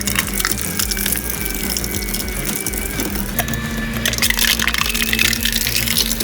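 Industrial shredder running, its steady hum under a dense crackling and clattering of material breaking up, busiest about two-thirds of the way through.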